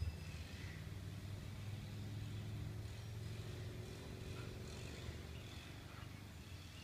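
Low rumble of a motor vehicle engine, slowly fading.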